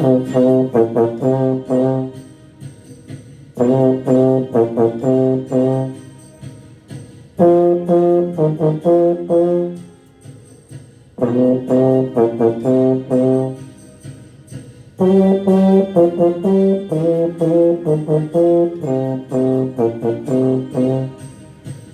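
Trombone playing a band theme in five phrases of short detached notes, each phrase about two seconds long with brief rests between, the last phrase running longer.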